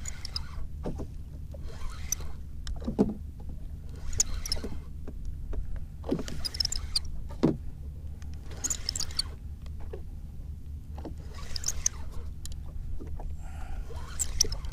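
Water splashing and lapping against the hull of a small wooden boat in repeated swooshes every second or two, over a steady low rumble.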